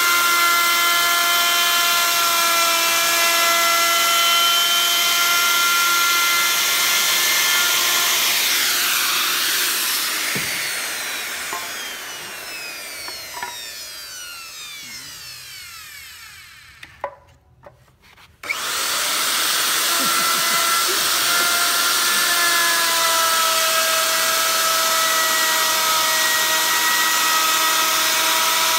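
Dongcheng electric plunge router running and cutting a slot in a wooden board. About a third of the way in it is switched off and winds down with a falling whine, and a few knocks follow. Just past halfway it starts up again with a sudden rise and runs steadily.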